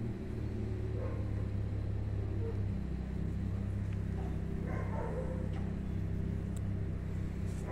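Steady low motor hum, with two faint short sounds, one about a second in and one around five seconds in.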